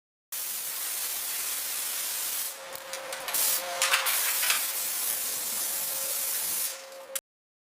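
A hissing spray that starts suddenly, wavers with a few short dips partway through, and cuts off abruptly near the end.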